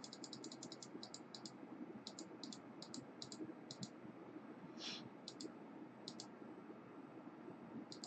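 Faint runs of rapid, light clicks from a computer's input controls, in quick clusters separated by short pauses, with a brief soft hiss about five seconds in.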